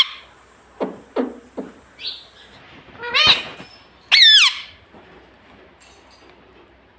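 Indian ringneck parakeet calling: a few short falling chirps, then two loud, shrill calls that bend up and down in pitch about three and four seconds in.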